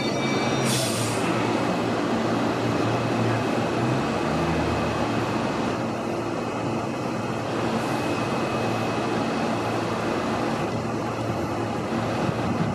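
Queensland Rail electric suburban trains at a station: a steady electric hum and rumble of running gear, with a faint thin high whine. A short hiss comes about a second in.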